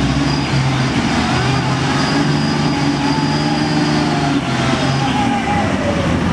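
Diesel engine of a loaded Mitsubishi Fuso Fighter truck running steadily under load as the truck crawls through deep mud, its note shifting about four and a half seconds in.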